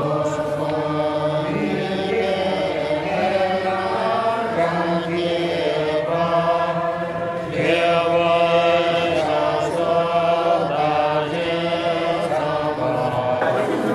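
Buddhist monks chanting a prayer together, men's voices in unison holding long steady notes that step between pitches.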